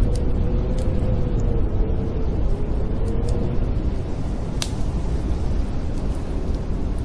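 Blizzard wind with a deep steady rumble and a faint whistling howl that wavers in pitch, over the sparse crackle of a wood fire; one sharper pop about four and a half seconds in.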